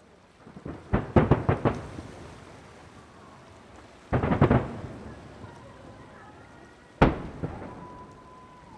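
Aerial fireworks shells bursting: a rapid string of bangs about a second in, another cluster around four seconds, and one sharp single bang near seven seconds, followed by a faint steady whistle.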